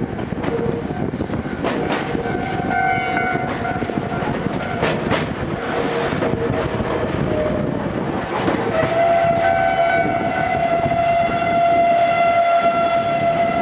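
Gakunan Railway 7000 series electric railcar running, heard from inside the car: a steady rumble with sharp clicks of the wheels over the rail. A steady pitched whine from the running gear comes in strongly about nine seconds in.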